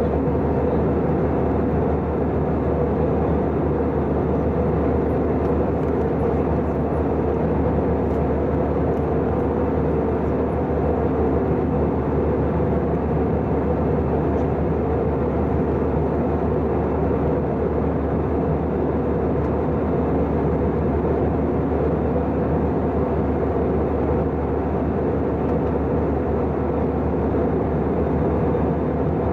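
Cabin noise of an Airbus A320-214 in flight, heard at a window seat beside its CFM56-5B engine: an even rush of engine and airflow noise with a steady drone underneath, unchanging throughout.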